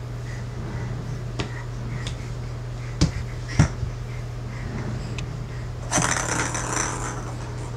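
A few sharp taps of a crawling baby's hands and plastic toy balls on a hardwood floor, two of them close together about three seconds in, and a brief noisy burst about six seconds in, over a steady low hum.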